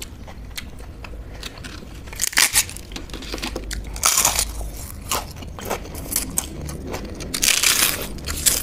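Close-up crunching of a crisp fried papad: a few loud, crackly bites and crunches, the loudest about four seconds in and again near the end, with softer chewing between them.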